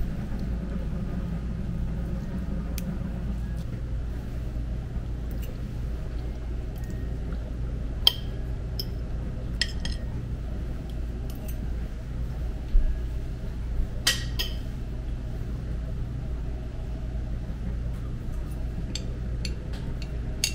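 Steady low room hum with a few scattered sharp clicks and clinks of a utensil as an avocado is eaten.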